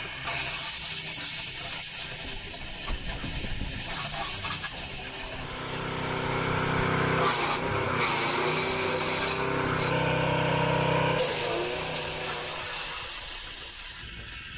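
An engine-driven wood-processing machine running and cutting through wood. A steady engine drone builds from about five seconds in, is loudest in the middle, and eases off near the end.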